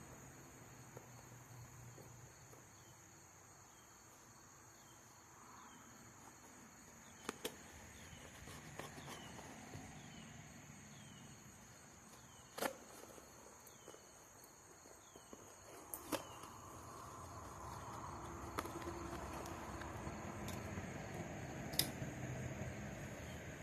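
Faint sounds of a cardboard box being cut open and handled: scattered sharp clicks and knocks, with rustling and scraping that builds through the second half. Under it are a high steady hum and a short falling chirp repeated about once a second in the first half.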